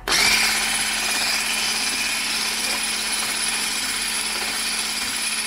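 Electric hand mixer switched on at the start and running steadily, its beaters whipping egg whites into meringue in a stainless steel bowl, with a constant motor hum.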